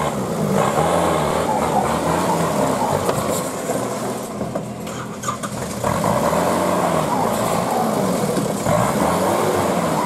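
Off-road 4x4's engine revving hard in repeated surges, the revs rising and falling as it claws up a muddy bank; it eases off briefly around the middle, then revs up loud again.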